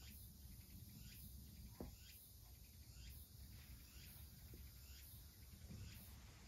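Near silence: quiet room tone with a low hum and a few faint, short chirp-like sounds scattered through it.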